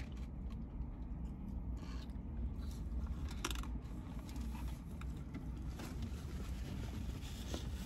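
Quiet eating and food-handling sounds: chewing and the rustle and scrape of burger wrappers and a cardboard burger box, in a few faint clicks and scrapes. Under them is a steady low hum in the car cabin.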